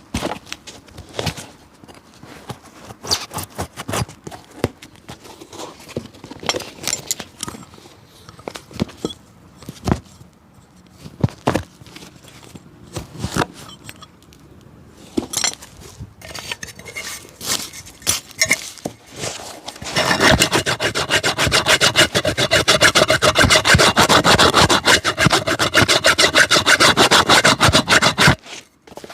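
A cobbler working an old shoe's sole by hand: scattered scrapes and taps, then about two-thirds of the way in a fast, steady, loud back-and-forth rubbing, like a rasp or brush worked over the sole, that stops just before the end.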